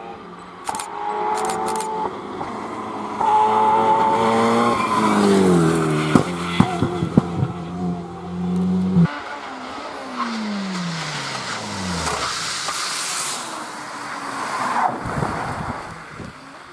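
Alpine A110 rally car's engine at full throttle, revs climbing as it comes up the stage, then a string of sharp exhaust pops and bangs as it lifts and brakes for the bend. After a cut, a second pass follows, the engine note falling steadily away as the car goes by.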